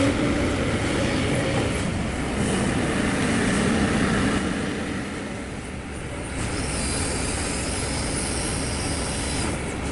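Kobelco SK200 hydraulic excavator working, its diesel engine and hydraulics running as the boom and bucket move, with a steady mechanical clatter. A high steady whine joins about six and a half seconds in and stops shortly before the end.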